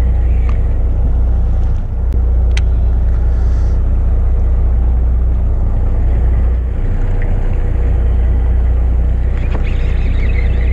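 Steady low rumble of the fishing boat's engine running, with a few light clicks near the start.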